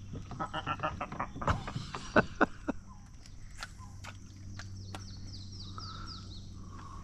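Birds singing, with a run of quick falling notes about five seconds in, over scattered sharp clicks and a steady low hum.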